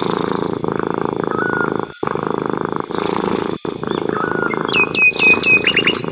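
A domestic cat purring steadily and close up, with two brief breaks. Small birds chirp over it, with a quick run of falling whistles and trills near the end.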